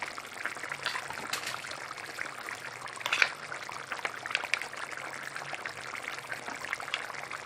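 Tomato sauce with chicken bubbling at a simmer in a tray on the stove: a steady crackly bubbling with many small pops, and a short sharper clatter about three seconds in.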